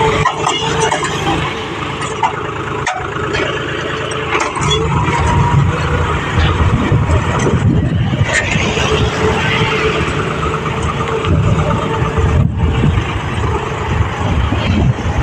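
John Deere 5050D tractor's three-cylinder diesel engine running steadily under load while pulling a two-bottom mouldboard plough through hard, dry soil.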